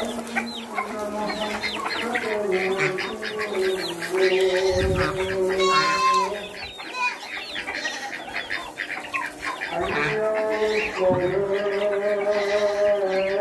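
Chickens clucking and chicks cheeping with many short, quick calls, over a voice singing long, slowly wavering held notes, one stretch in the first half and another from about ten seconds in.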